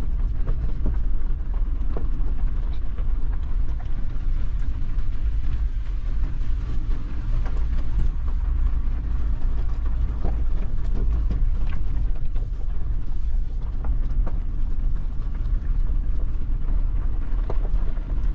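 Maruti Suzuki Jimny driving slowly up a rough mountain track: a steady low rumble of engine and drivetrain with tyre noise, with scattered light knocks and rattles from the rough surface.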